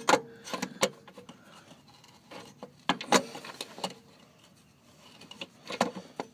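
Starter motor being worked by hand into its mounting on the engine: scattered metal clinks, knocks and scrapes as it is shifted and adjusted into position.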